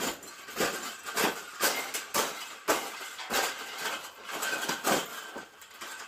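Round wire bird cage being bent and crushed flat on the floor. Its metal wires give repeated sharp crunches and rattles, about two a second.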